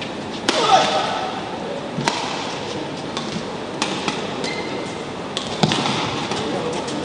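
Badminton doubles rally: sharp racket strikes on the shuttlecock every second or two over the hum of an indoor hall, with voices in the background.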